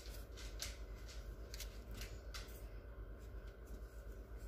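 Faint rustling and soft rubbing as butter is rubbed over the crust of a freshly baked loaf, with a few small ticks, over a low steady hum.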